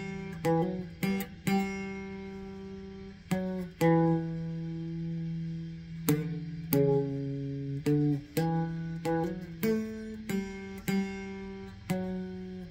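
Guitar played with a pick: single notes and chords struck one after another, some left to ring out for a second or two.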